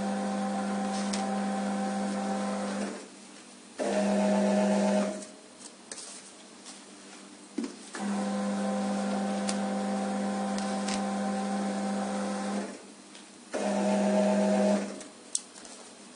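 Conveyor belt motor of a QMAX NF-1 needle detector running with a steady hum, stopping, then humming louder for just over a second before going quiet; the cycle runs twice. A few short clicks fall in the quiet gaps between runs.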